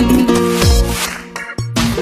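Instrumental intro of a pop-folk song: a steady beat with deep, downward-gliding kick drums under held melody notes. The music drops out briefly about one and a half seconds in, then comes back in.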